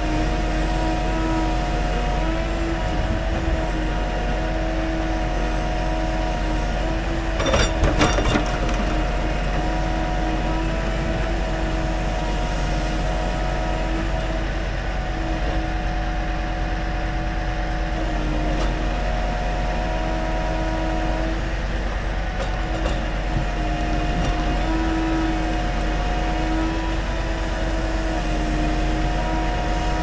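Scania timber truck's engine running with its hydraulic pump whining steadily while the truck-mounted timber crane unloads pine logs; the whine wavers a little in pitch as the crane works. A brief clatter of knocks about eight seconds in.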